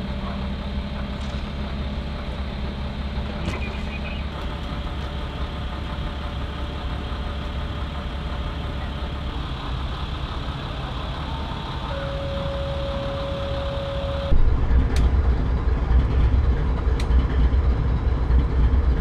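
Steady low diesel engine rumble, which turns suddenly louder about fourteen seconds in as BNSF diesel freight locomotives pass along the track.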